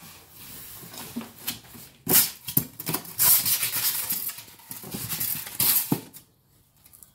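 Cardboard carton and packing pieces rustling and scraping as hands work them out of a large shipping box, with a few light knocks. The handling is busiest from about two to six seconds in.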